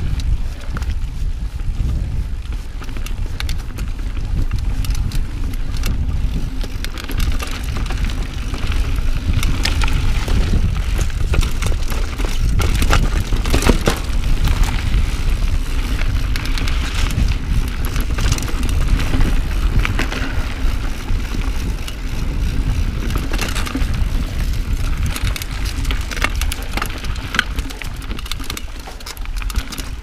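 Giant Trance full-suspension mountain bike riding over dirt singletrack and roots: a steady low rumble of tyres on the trail with irregular clatters and knocks from the bike as it hits roots, busiest around the middle.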